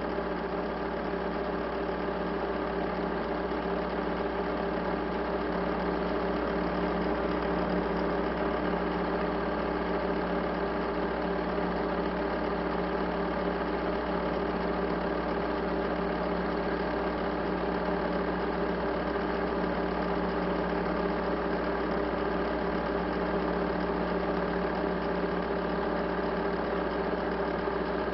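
Steady, unchanging mechanical hum made of several fixed tones, like a motor running at a constant speed.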